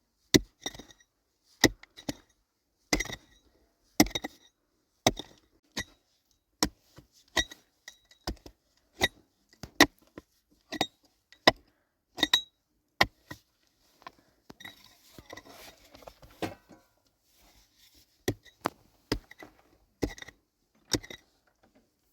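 Repeated sharp strikes of a hand tool on a hard surface, about one or two a second with a short metallic ring, broken about two thirds of the way through by a few seconds of scraping before the strikes resume.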